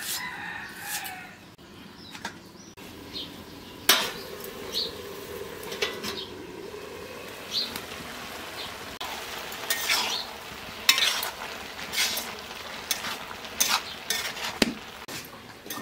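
Shredded cabbage sizzling in a metal kadai. A metal spatula stirs it, scraping and knocking against the pan many times.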